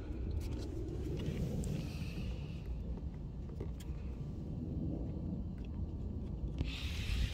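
Steady low rumble of outdoor background noise, with a few faint clicks and a short burst of hiss near the end.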